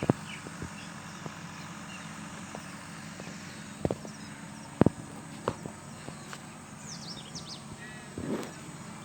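A steady low engine hum, broken by a few sharp clicks or knocks about four and five seconds in, with brief high bird-like chirps near the end.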